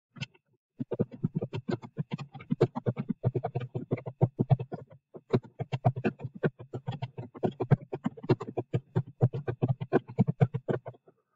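Typing on a computer keyboard: a steady run of key clicks, about five a second, with a short break about five seconds in.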